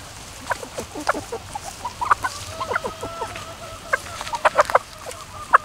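A flock of asil gamefowl hens and pullets clucking in short, scattered notes. About two seconds in, one bird gives a drawn-out call that holds for around two seconds, and a few sharper clucks come near the end.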